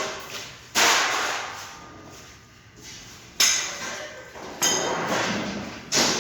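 Hammer blows on sheet metal, a few irregular strikes a second or more apart, each ringing and fading.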